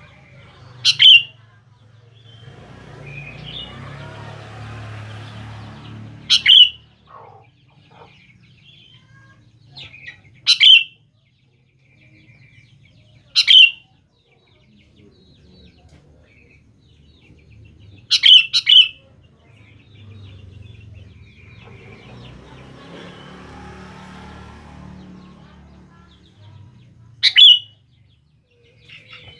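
Sooty-headed bulbul giving short, sharp calls, about six loud ones a few seconds apart, one doubled. Between them, two stretches of quieter rushing background noise lasting several seconds each.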